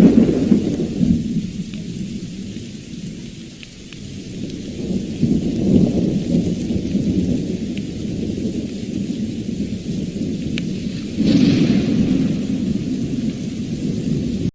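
Thunderstorm: thunder rumbling over steady rain. A deep rumble dies away over the first few seconds, another builds around six seconds in, and a sharper, brighter peal breaks in about eleven seconds in.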